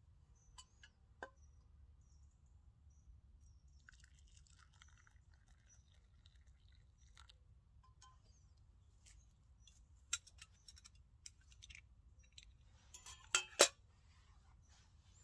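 Liquid poured from a stainless steel mug into a wooden kuksa cup, heard as a soft splashing. Then come a few sharp clinks as the metal mug is handled and set down, the loudest two a little before the end.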